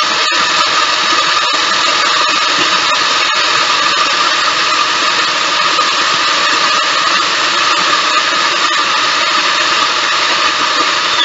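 Food processor motor running steadily and loudly, its blade grinding graham crackers into crumbs.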